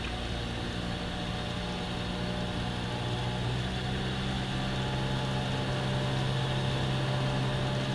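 Cabin sound of a Cessna 172M in flight: its four-cylinder Lycoming engine and propeller run in a steady drone. The engine note steps up slightly about halfway through and gets a little louder.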